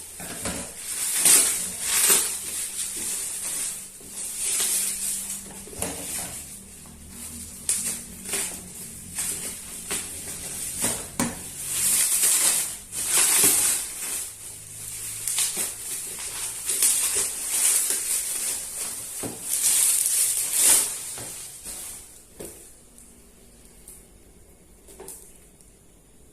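Plastic figure packaging being handled and unwrapped: repeated crinkling and rustling with small clicks and taps, which die down near the end.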